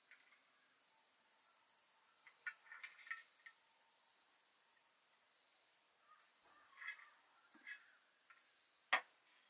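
Faint clinks of metal tongs against the serving bowl and steel plates as noodles are served: a cluster of light taps, two more later, and one sharper click near the end. Under them runs a steady high-pitched insect chirr.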